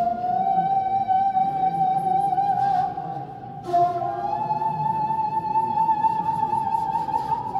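Slow dance accompaniment music: a single melodic line of long held notes that glide slowly upward in pitch, broken briefly about three seconds in.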